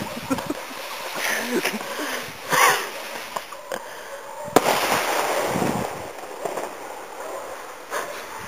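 Home-made black-powder rocket burning in flight: an uneven rushing hiss, with a sharp crack about four and a half seconds in followed by a fading rush.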